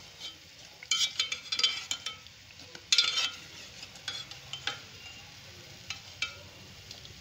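A metal utensil clinking and scraping against a pan while bread slices fry in ghee, over a faint sizzle. The clinks come in clusters, the loudest about a second in and about three seconds in.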